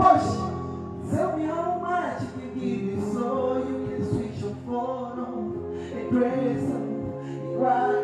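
Live male singing into a handheld microphone over a backing music track, heard through the stage PA.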